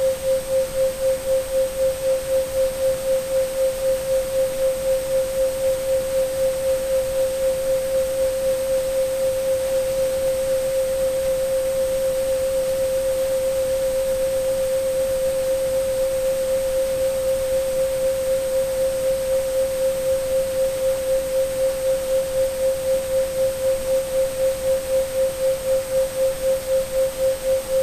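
Electronically generated 528 Hz sine tone, a solfeggio frequency, held steady with a regular pulsing wobble in loudness. It sits over an even hiss of pink and white noise, with a faint high whistle near 8 kHz. The pulsing grows shallower in the middle and deepens again toward the end.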